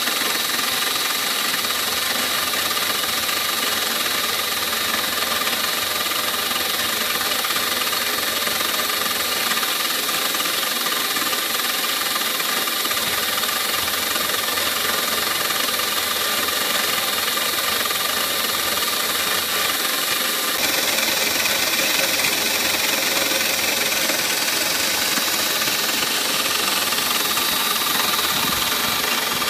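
CNC spindle running steadily with a high-pitched whine while a small end mill cuts clear plastic. The tone shifts slightly and gets a little louder about two-thirds of the way through.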